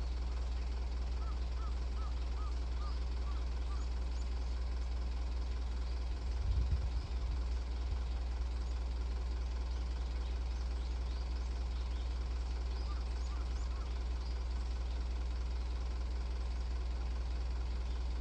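Toyota microbus dual-mode vehicle standing on the rails with its engine idling, a steady low hum. A low thump about six and a half seconds in, and birds chirping.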